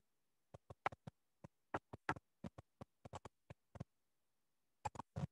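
A run of about twenty light, irregular clicks, like computer clicking at a desk, with a pause of about a second before a few more near the end.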